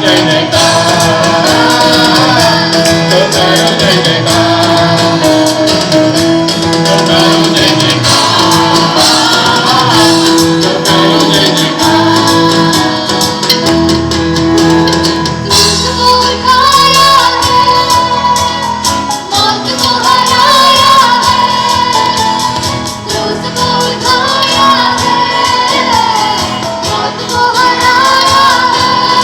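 A Christian action song playing loudly: a singing voice with a chorus over a continuous musical backing.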